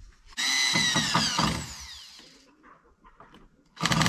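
Power drill running into wood, two bursts: a whine that starts about half a second in and falls in pitch as it fades over about two seconds, then a second burst starting near the end.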